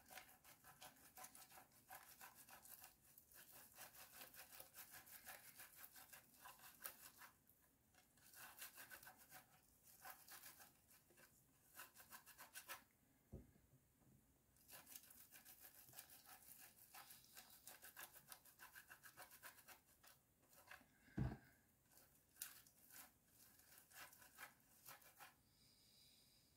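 Hard-boiled egg whites grated on a metal box grater: quick runs of soft, rapid scraping strokes with a few short pauses. Two dull knocks, one about halfway through and a louder one later.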